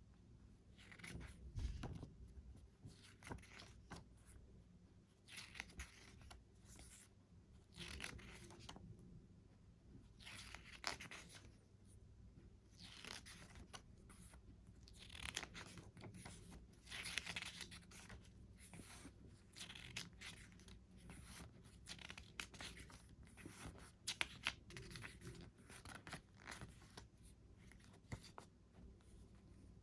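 CD packaging being unwrapped and handled: irregular, faint crinkling and tearing rustles of plastic wrap and card, with a few sharp clicks.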